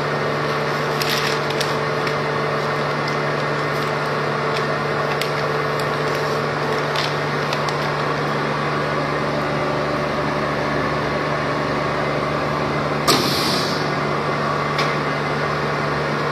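Double-chamber vacuum packaging machine running with a steady mechanical hum from its vacuum pump, with a few light ticks and a brief sharp burst of hiss near the end.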